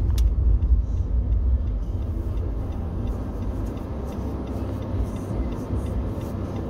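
Low rumble of a car's engine and tyres heard from inside the cabin, dying down as the car slows to a stop. A single sharp click comes just after the start.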